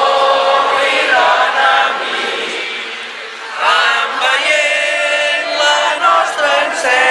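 A crowd of demonstrators chanting together in unison, with a short lull about three seconds in before the voices pick up again.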